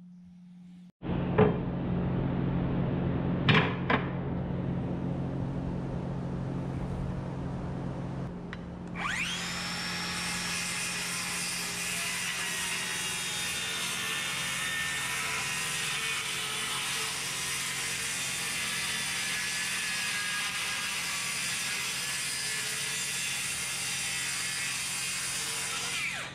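Circular saw spinning up about a third of the way in and cutting through a sheet of plywood, running steadily until it stops right at the end. Before it starts there are two sharp knocks a moment apart over a low steady hum.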